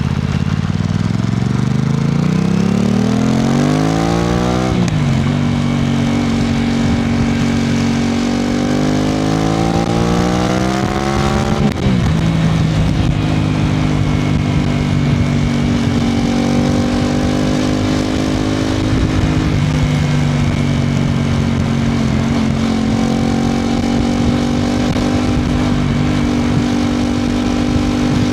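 Aprilia RS660 Extrema's parallel-twin engine accelerating through the gears. The pitch rises for about five seconds, drops at an upshift, and rises again to a second upshift about twelve seconds in. After that it holds a fairly steady cruise with small throttle changes.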